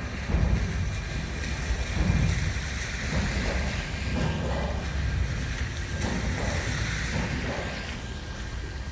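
Railway carriages rolling slowly during shunting onto a train ferry: a steady low rumble and hiss, with a couple of heavier knocks about half a second and two seconds in.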